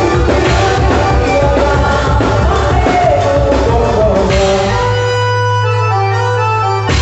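Loud music accompanying a quadrilha junina, with a steady beat and singing. A little past halfway the beat drops out under a held chord that cuts off suddenly near the end.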